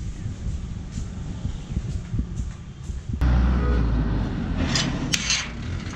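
Road traffic rumbling, louder and fuller from about three seconds in, with short hissy bursts and a sharp click near the end.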